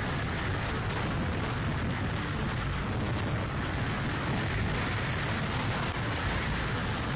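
Category 5 hurricane winds and driving rain blowing steadily, with heavy wind buffeting on the microphone.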